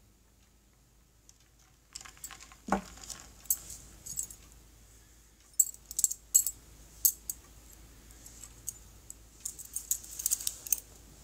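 Handling noise: after a near-silent start, scattered light clicks and rattles of small hard objects, with a louder knock about three seconds in.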